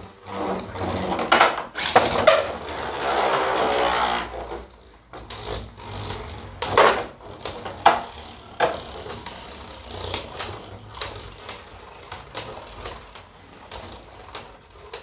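Two Beyblade Burst tops, Spriggan Requiem and Judgement Joker, spinning in a plastic stadium. A loud, sustained whirr from about two to four seconds in is the second top's ripcord launch. It is followed by many sharp, irregular clicks and clacks as the tops collide and strike the stadium walls.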